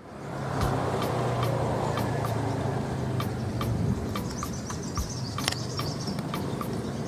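A motor vehicle's engine humming steadily, strongest for the first four seconds and then fading, with faint regular ticks about three a second.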